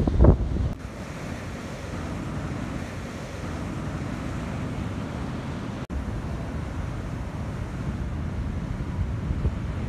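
Heavy ocean surf breaking and washing, with wind blowing across a phone microphone; loud wind thumps on the microphone in the first second, then a steady rumble of wind and surf.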